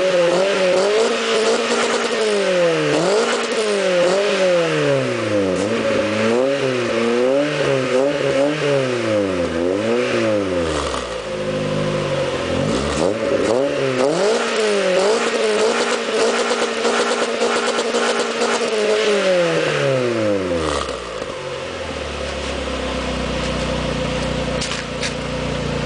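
Renault Clio 1.8 16V's four-cylinder engine being revved in repeated quick blips, rising and falling about once a second. It is then held at high revs for several seconds and drops back to a steady idle near the end.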